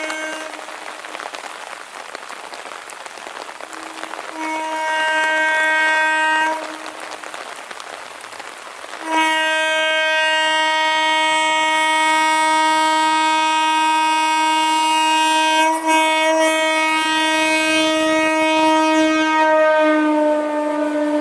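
Horn of an electric multiple unit (EMU) local train sounding three times: a blast ending just after the start, a blast of about two seconds about four seconds in, and a long sustained blast from about nine seconds in. Rain hisses steadily between the blasts.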